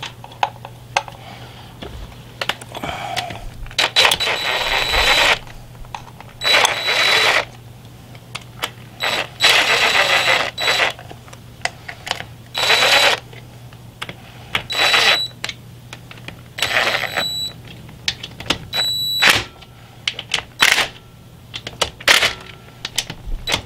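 DeWalt cordless impact driver run in about a dozen short bursts, each up to about two seconds long, with a high whine, driving the bolts of a Suzuki DR650's oil filter cover back in.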